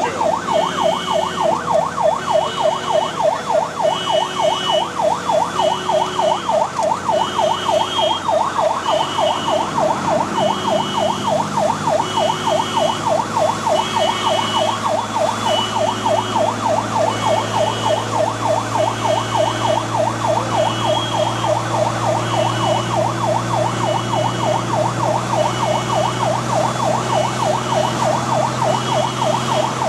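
Fire engine siren on a Magirus-Deutz 192D11 on an emergency run, sounding a fast yelp that sweeps up and down several times a second. It is heard from inside the cab, with a second tone pulsing about once a second. Under it the truck's diesel engine drones, growing louder in the second half.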